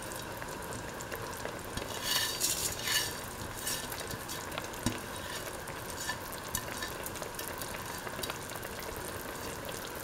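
Pot of duck stew with vermicelli simmering on the stove: a steady bubbling hiss, with a few light clicks and brief louder crackles a couple of seconds in.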